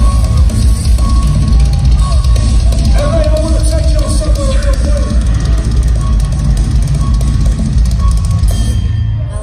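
Live rock band music played loud through an arena sound system, the drum kit and heavy bass to the fore; the upper part of the sound drops away near the end.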